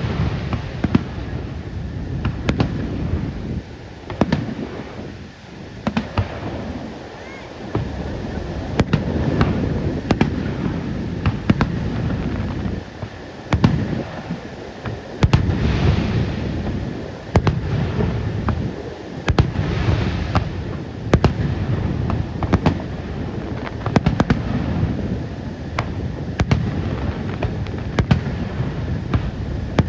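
Fireworks display: aerial shells bursting in sharp bangs and cracks, going off irregularly, often a second or less apart, over a steady low rumble.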